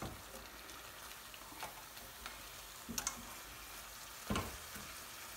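Lamb pieces frying in a metal pan with ginger and garlic paste, a steady faint sizzle. A spatula stirs the meat, scraping and knocking against the pan a few times, most clearly about three seconds in and again just past four seconds.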